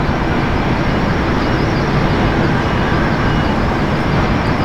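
Steady low roar of an Airbus A380's four turbofan engines on final approach, even throughout with no change in pitch.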